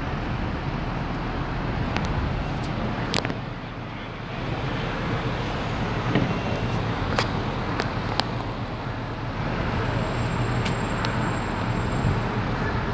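Steady urban street noise of traffic and idling vehicle engines, with a continuous low rumble and a few sharp clicks scattered through.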